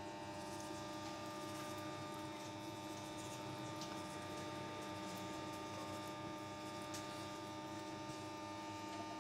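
A steady electrical hum made of several even tones, level throughout, with a couple of faint ticks.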